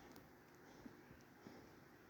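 Near silence: faint steady background noise with a few soft ticks.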